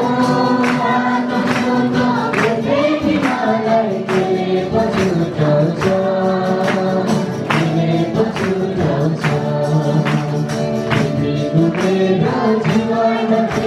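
Church congregation singing a worship song together over a steady percussion beat, about two strikes a second.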